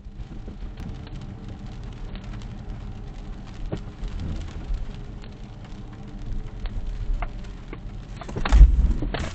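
Heard from inside a car moving slowly on a wet road in the rain: steady tyre and road rumble with rain pattering on the car. A sudden loud thump comes about eight and a half seconds in, with a smaller one just after.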